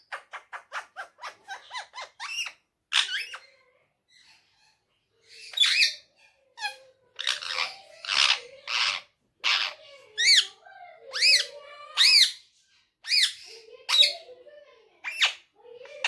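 Indian ringneck parakeet calling: first a quick run of short chirps, about five a second, then a string of harsh, chattering calls and clear whistled calls that rise and fall in pitch, about one a second.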